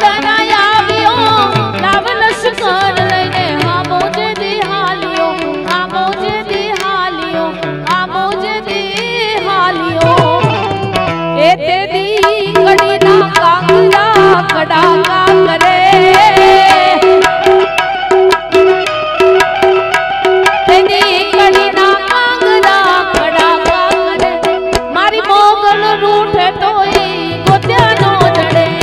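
Live Gujarati devotional folk music: a harmonium melody over tabla, playing in a steady rhythm.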